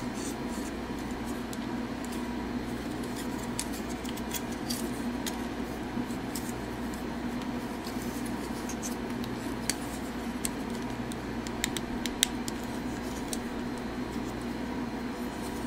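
Faint clicks and scrapes of the plastic parts of a 52Toys BeastBox BB-38 Gunpowder transforming figure being handled and snapped into place, a few sharper clicks about two thirds of the way in, over a steady low background hum.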